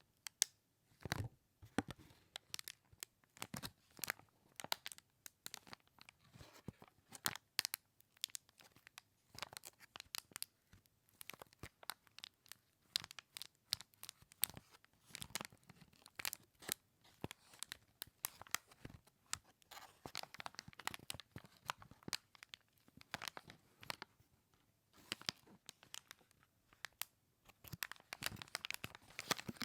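Plastic packaging bag of a small mascot toy being handled and opened, giving a dense, irregular run of sharp crinkles and rustles.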